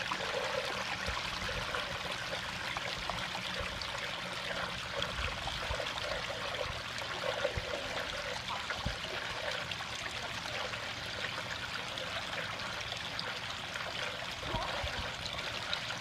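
Small backyard koi-pond waterfall running: water splashing and trickling steadily over rocks into the pond.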